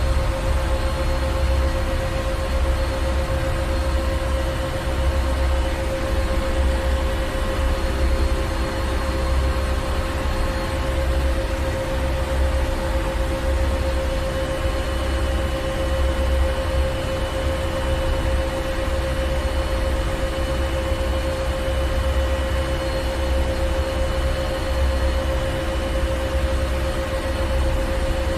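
Ship's engine room: heavy machinery running steadily, with a deep rumble that swells and eases unevenly, a constant hum and an even hiss over it.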